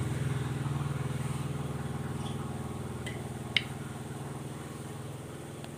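Rasam boiling in a pan on the stove: a steady low hum that slowly fades, with a couple of light clicks about three and a half seconds in.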